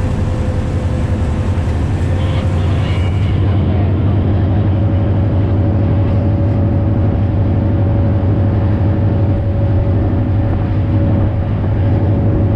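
Diesel locomotive running steadily, heard from inside the driver's cab: a loud, even low drone with a steady whining tone held above it.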